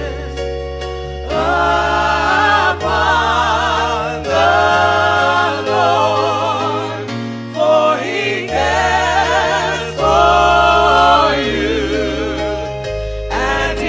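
Gospel song sung by several voices in harmony, in long phrases with vibrato, over held bass notes that change with the chords.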